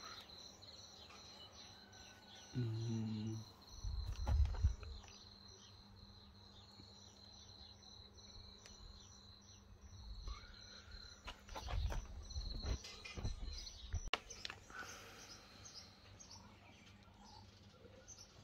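Outdoor background: a steady high insect trill that fades about halfway through, with a few bird chirps. A short low buzz comes about three seconds in, and low bumps and rumbles come around four to five seconds in and again from about twelve to fourteen seconds.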